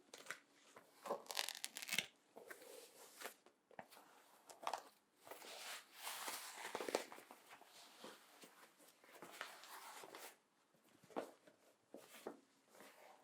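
Leather creaking and rustling close to the microphone as leather clothing and a mask are handled, in irregular crinkly strokes with short pauses between them.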